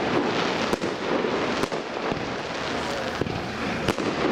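Aerial firework shells bursting in a professional fireworks display: several sharp bangs over continuous crackling.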